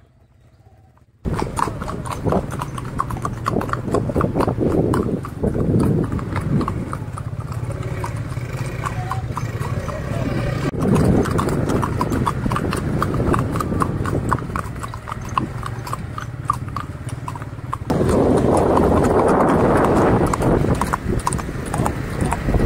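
Horses' hooves clip-clopping in a rapid, uneven stream on a paved lane, starting suddenly about a second in. A louder rushing noise joins the hoofbeats near the end.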